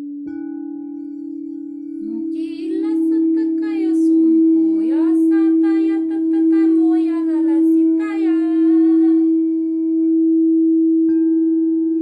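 Crystal singing bowls ringing with a steady low hum. A bowl is struck with a mallet just after the start and another near the end, each adding a higher ring. Over the middle, from about two seconds in to about nine, a woman vocalizes wordlessly in sliding, sung syllables.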